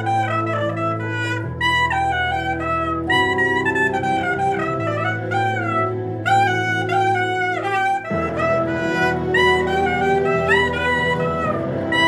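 Straight soprano saxophone improvising a smooth-jazz melody, sliding and bending between notes. Underneath, sustained low accompaniment chords change every second or two.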